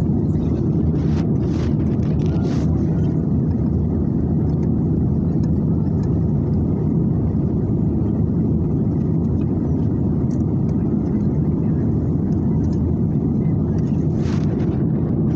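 Aeroplane cabin noise in flight: a steady, low rumble of engine and airflow noise that holds an even level throughout. A few faint, brief sounds break through about a second in and again near the end.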